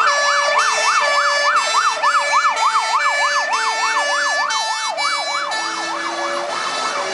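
Fire engine's siren in a fast yelp, its pitch sweeping up and down about three times a second, with a second, steadier tone alternating between two pitches. It eases slightly toward the end as the engine pulls away.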